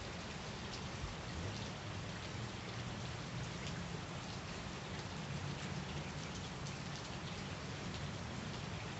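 Steady rain falling on wet grass, puddles and a concrete pad, with a dense patter of individual drops and a low rumble underneath.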